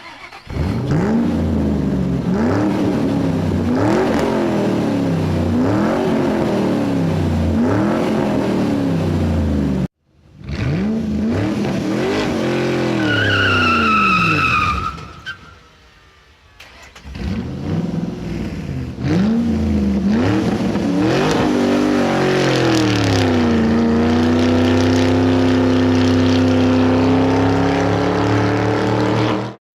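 Car engine revving up and down over and over, about once a second, with a brief tyre squeal about a third of the way through. Near the end the engine holds a high, steady note that slowly climbs in pitch, then cuts off abruptly.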